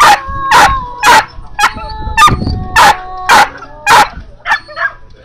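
A whippet barking repeatedly, about two sharp barks a second, with whining between the barks: a sighthound worked up during lure coursing.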